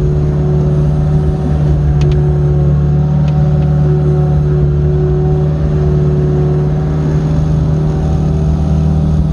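Old Samsung MX55 mini excavator's diesel engine running at a steady speed with a constant hum. A couple of faint clicks come about two and three seconds in.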